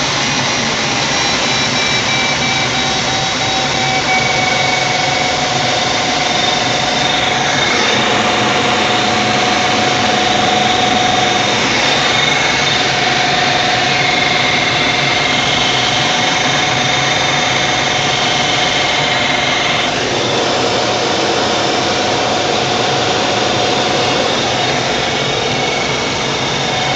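Steady rush of airflow over the canopy and fuselage of a Grob G103 Twin Astir II glider in gliding flight, heard inside the cockpit. Faint thin whistles at a few steady pitches come and go over the rush.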